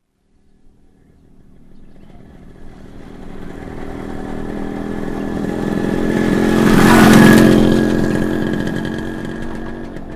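Motorcycle passing by: its engine grows steadily louder as it approaches, is loudest about seven seconds in as it passes, then fades as it rides away.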